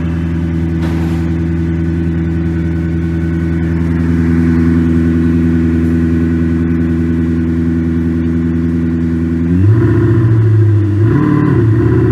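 AlphaX electronic engine-sound simulator playing a synthesized sports-car engine note through a speaker: a steady idle, then a couple of quick revs in the last two seconds.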